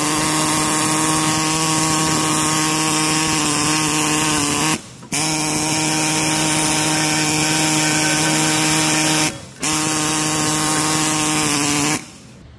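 Pneumatic needle scaler chiselling rust buildup off a brake caliper bracket, a loud steady buzz at one pitch. It stops briefly twice, about five and nine and a half seconds in, and cuts off shortly before the end.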